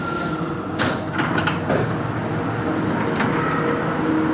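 Santiago Metro NS16 train standing in a station: a steady whine cuts off just after the start, then a quick run of clicks and knocks about a second in, as of the sliding doors releasing, with one more click near the end, over the train's steady hum.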